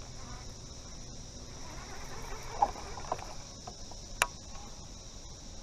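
Steady high-pitched chorus of insects, with a few sharp clicks and knocks over it, the loudest about two and a half seconds in.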